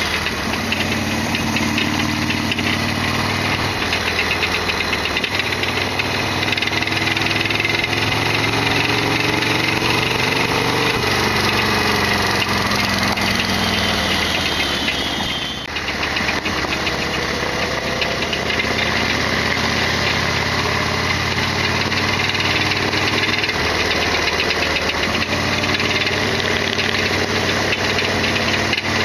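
Harley-Davidson Sportster XL1200's air-cooled V-twin running under way, its revs climbing and dropping as it changes speed, with a short dip about halfway through as the throttle closes. A mechanical rattling clatter runs over the engine note: this bike's loud abnormal noise.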